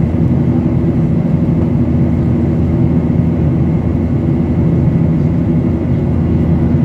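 Steady cabin noise of a Boeing 737-800 in flight, heard inside the cabin beside the wing: its CFM56-7B turbofan engines and the airflow make an even low rumble with a few steady hums.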